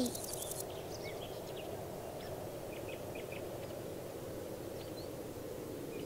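Steady background countryside ambience with sparse, faint bird chirps.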